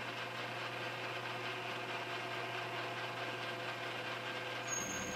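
Metal lathe running steadily as a parting tool cuts a small steel screw off the bar stock: a steady motor hum with a light cutting hiss. The sound changes briefly near the end, with a short high tone.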